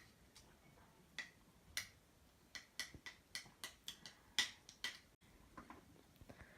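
A series of faint, irregular light clicks and taps, about a dozen over several seconds, with a brief cut to silence about five seconds in.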